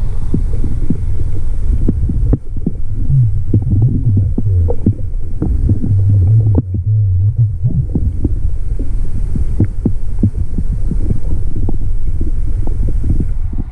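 Muffled sound of water around a camera microphone held under water: a loud low rumble and throb, with many small clicks and crackles scattered through it.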